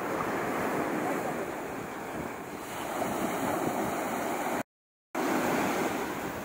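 Sea surf breaking and washing up a sandy beach, with wind buffeting the microphone. The sound cuts out completely for about half a second a little over four and a half seconds in, then resumes.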